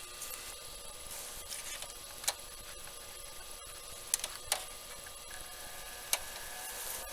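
Powered-up ZVS induction heater board and its microwave-oven-transformer power supply humming steadily, with a faint high whine. A few sharp clicks break in, about two, four and six seconds in.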